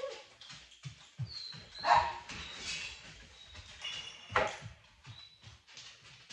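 A dog moving about on a hardwood floor, its paws and nails tapping in an irregular patter while it searches. There is one short bark about two seconds in and a sharp knock a little past four seconds.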